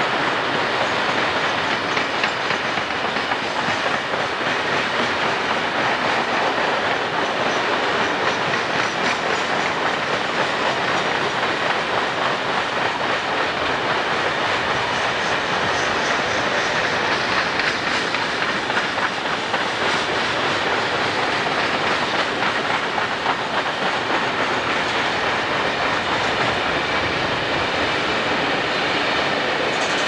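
A long string of empty coal hopper cars rolling past up a grade. The wheels give a steady rumble with a clickety-clack over the rail joints.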